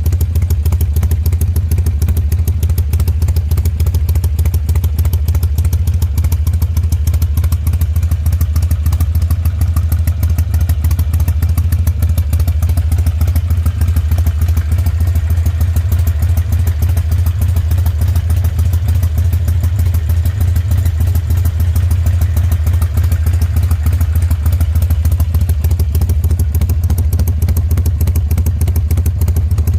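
Harley-Davidson V-twin engine idling steadily with a loping 'horse-hoof' beat, its idle set with a Vance & Hines Fuelpak FP3 tuner.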